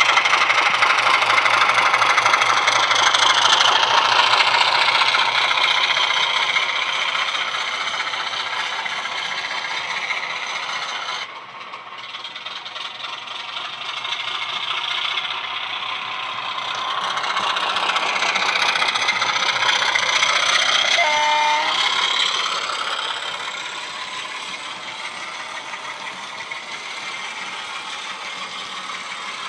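Model Class 25 diesel locomotive's DCC sound decoder playing a Sulzer diesel engine sound through two small EM1 speaker drivers while the model runs, mixed with the rattle of its wheels on the track. The sound grows louder as the train comes near and fades as it moves away, with a sudden drop about a third of the way in.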